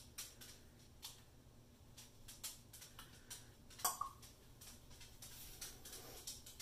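Faint, scattered light clicks and taps, with one sharper click about four seconds in.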